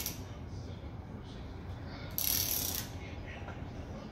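Ratchet wrench being worked on the top mounting bolt of an engine hoist's hydraulic cylinder, giving a short burst of fast ratcheting clicks on each back-swing, one about two seconds in, following the tail of another at the start.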